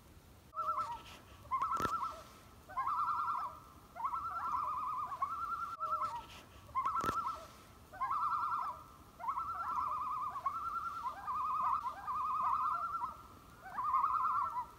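An animal call repeated about ten times: short, rapid pulsed trills at one steady pitch, each lasting under a second, with two sharp clicks among them.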